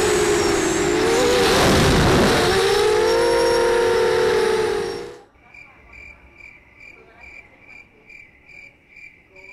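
QAV250 racing quadcopter motors whining, the pitch wavering and dipping sharply about two seconds in as a quad swoops past. The whine cuts off abruptly about five seconds in. After it comes a much quieter, steady high chirping at about two and a half chirps a second.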